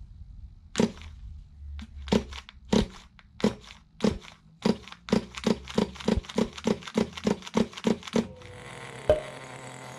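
Nitro RC car's small glow-fuel engine being cranked on its repaired recoil pull starter: a run of short, sharp pull strokes that come faster and faster, up to about three a second. About eight seconds in the engine catches and settles into a steady run.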